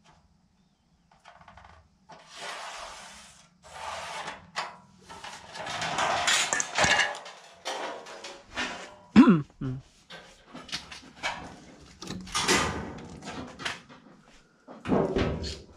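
Galvanized sheet-metal duct panels being handled: irregular scraping, sliding and rattling of the metal sheets on a concrete floor, with one loud metallic clang, falling in pitch, about nine seconds in.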